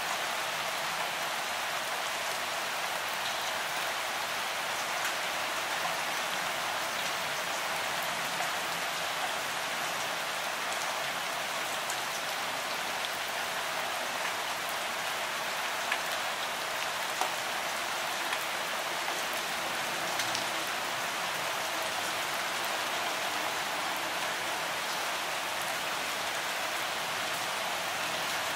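Steady rain: an even hiss, with a few louder single drops ticking now and then.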